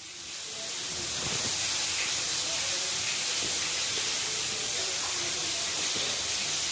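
A steady hiss fades in over about a second and then holds evenly, strongest in the high range.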